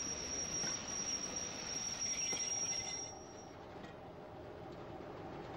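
Train wheels squealing on the rails: one steady high-pitched squeal over the train's rumble that stops about three seconds in, leaving a quieter low rumble.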